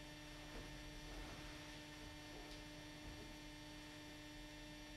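Quiet room tone: a faint, steady electrical hum over a soft hiss.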